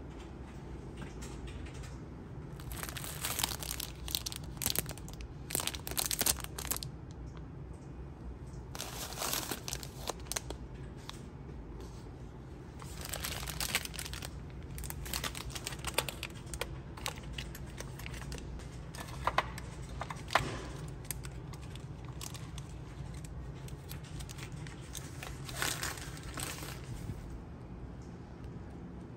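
Plastic-wrapped amenity packets crinkling as they are picked up and handled, in about five separate bursts, with a couple of sharper clicks in the middle. A steady low hum runs underneath.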